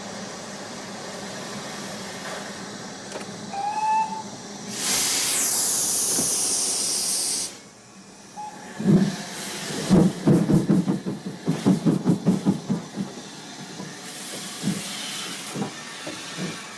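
Steam train: a brief short whistle, then a loud hiss of steam for about two and a half seconds that cuts off abruptly. A few seconds later comes a run of heavy rhythmic beats, several a second, that weaken toward the end.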